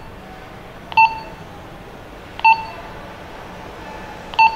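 Retevis RT33 walkie-talkie key tone: three short, identical beeps, one and a half to two seconds apart, each as a button on the radio is pressed.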